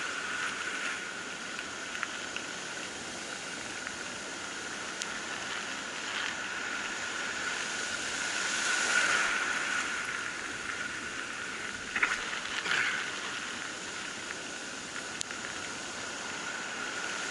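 Surf on a beach: waves breaking and foaming water washing in, a steady rush that swells about nine seconds in. A couple of short sharp knocks come about twelve seconds in.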